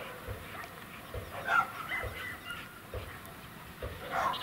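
A dog barking a few times, the loudest bark about a second and a half in.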